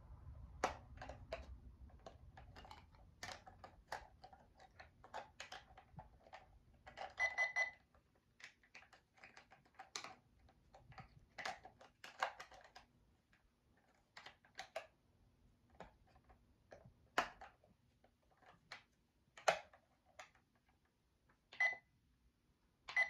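Buttons on a talking alarm clock being pressed over and over in an irregular run of clicks while it is being set, with a short beep about seven seconds in and two brief beeps near the end.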